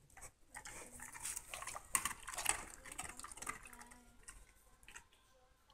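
Faint scattered clicks, clinks and rustling from dogs and a toddler at stainless steel dog food bowls holding kibble, thinning out near the end.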